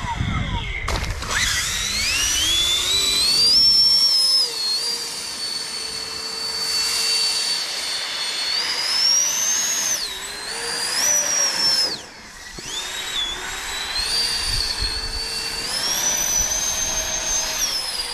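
Electric motor and air propeller of an RC airboat running at speed: a high whine that climbs as it throttles up over the first few seconds, then holds. It dips about ten seconds in, drops out briefly about twelve seconds in, and climbs again.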